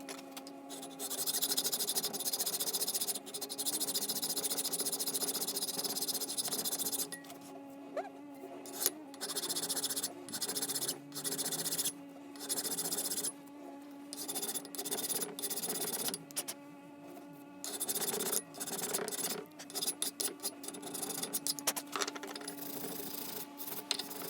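Abrasive rubbing, such as sanding or filing, in stretches of about a second or two with short breaks, over a steady low hum.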